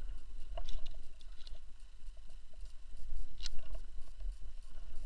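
Rope-climbing gear being handled: a few sharp metallic clicks from the ascender and carabiners, the loudest about three and a half seconds in, over a steady low rumble on the body-worn camera's microphone.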